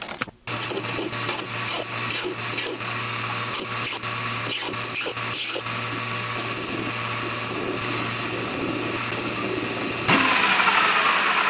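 Metal lathe running and turning down a bar of aluminum bronze, the cutting tool taking a cut with a steady motor hum and machining noise. The sound sets in about half a second in and gets clearly louder and brighter near the end.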